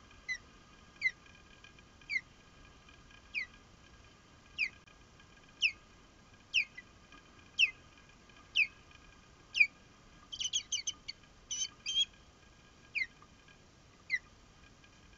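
Osprey calling: a series of sharp, high whistled chirps, each sliding down in pitch, about one a second, breaking into a quick flurry of calls about ten seconds in.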